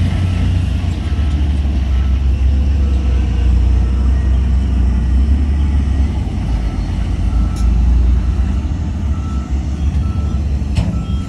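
Heavy diesel earthmoving machine running with a steady low rumble while its reversing alarm beeps about once a second. Two sharp metallic knocks come late on.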